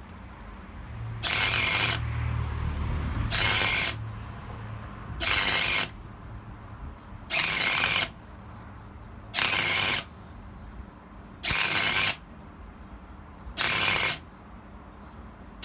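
MIG welder laying a series of short tack welds on thin car-body steel: eight short bursts of arc crackle, about one every two seconds.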